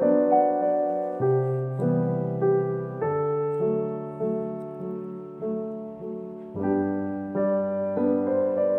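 Gentle solo piano background music, slow sustained chords changing about once a second.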